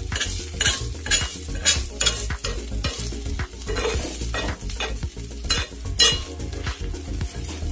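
A spatula scraping and patting a bread-and-besan mixture against a hot oiled tawa in repeated, irregular strokes as it is pressed into a round, with the oil sizzling underneath.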